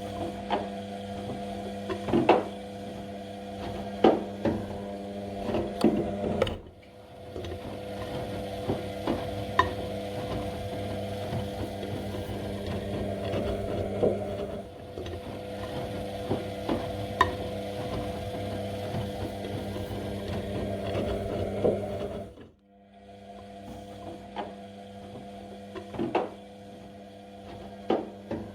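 Washing machine running a wash cycle: a steady motor hum as the drum turns, with light knocks and clicks scattered through it. The sound drops off briefly twice, about six seconds in and near 22 seconds in, as the drum pauses before turning again.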